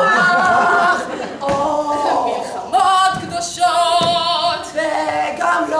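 A woman singing unaccompanied into a handheld microphone, holding long notes with vibrato.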